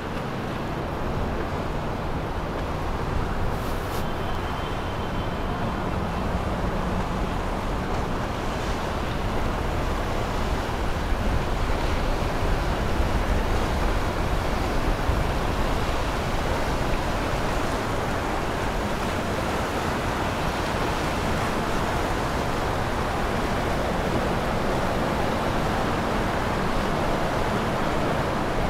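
Vanquish VQ58 motor yacht cruising past at low speed: a steady rush of engine and hull wash on the water, with wind on the microphone, a little louder about halfway through as it goes by.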